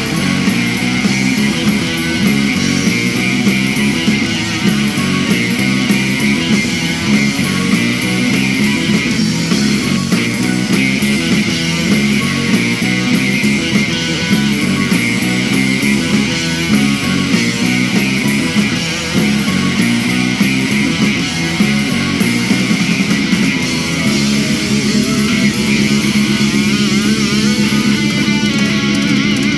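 Guitar-driven rock music playing continuously: the show's opening theme.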